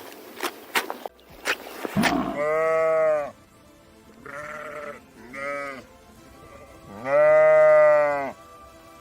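Sheep bleating, four separate bleats, the last the longest and loudest. Several sharp clicks come in the first two seconds, before the bleats.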